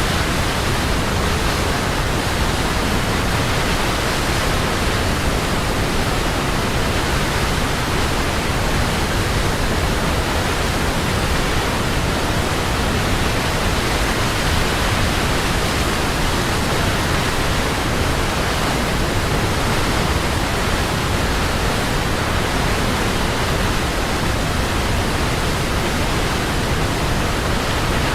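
Waterfall: a steady, unbroken rush of falling water, loud and even from low rumble to high hiss, with no changes.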